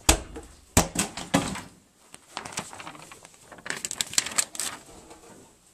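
Handheld props clacking and knocking together in a mock sword fight: a few sharp single knocks in the first second and a half, then a quick flurry of clicks near the end.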